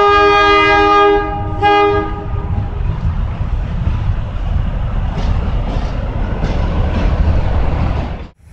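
Locomotive horn sounding a chord of several notes: one long blast, then a shorter one about a second and a half later. After that, the train's steady rumble and wheel noise, which cuts off suddenly near the end.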